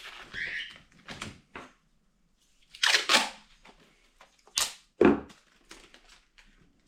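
Sticky tape being pulled off the roll and torn while taping cardboard: two loud rips close together a little under three seconds in, then two sharp cracks about a second and a half later, with lighter crinkling of cardboard between.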